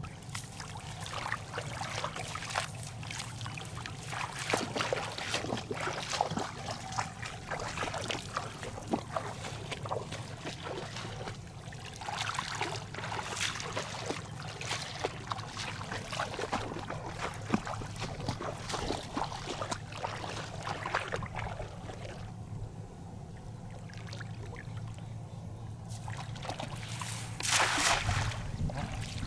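Water splashing and trickling in many small irregular splashes and drips over a steady low hum, with one louder splash near the end.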